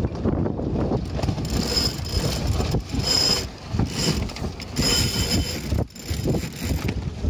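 A sailboat winch ratcheting in spells as a line is hauled in, from about a second in until about five seconds in, over steady wind noise on the microphone.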